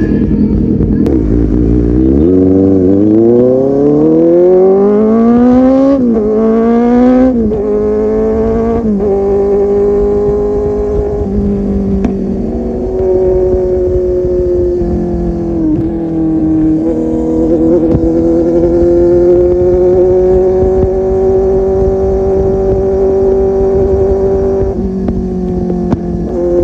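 Kawasaki Z800's inline-four engine through an aftermarket full-system exhaust, accelerating through the gears: the pitch climbs, drops at an upshift about six seconds in and again about seven seconds in, then settles to a steady cruise with small dips as the throttle eases.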